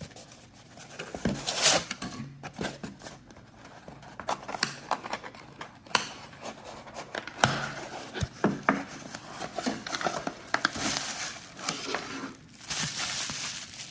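Packaging being opened and handled: plastic and paper crinkling and rustling, with irregular sharp clicks and knocks as the clamp's parts are taken out.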